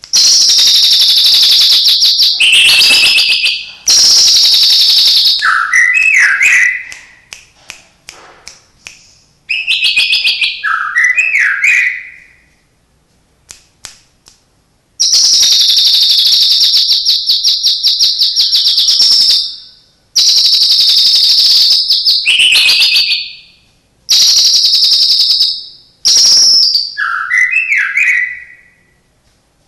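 White-rumped shama (murai batu) singing loud, long, fast rattling trills, each run straight into a short, lower warbling phrase, repeated about six times with short pauses. The phrases are mimicked songs of other birds that it has been trained on, such as the cililin and fighting house sparrows.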